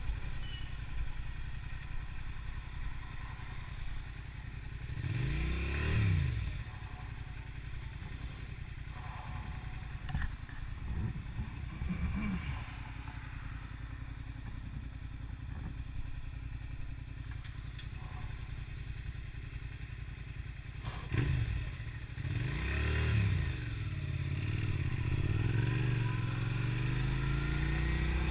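Vehicle engine and road noise while riding. The pitch swells up and down twice, about five seconds in and again past the twenty-second mark, then climbs steadily near the end.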